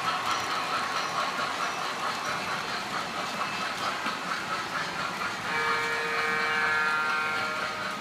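Model electric trains running on the layout's track with a steady, slightly pulsing rumble. About five and a half seconds in, an onboard sound system gives a two-second blast of a multi-note train signal.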